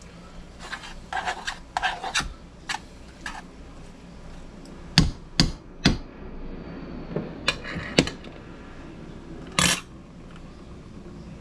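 A utensil scraping and tapping against a stainless steel saucepan: a run of short scrapes over the first few seconds, then a few sharp knocks around the middle and a brief rasp near the end.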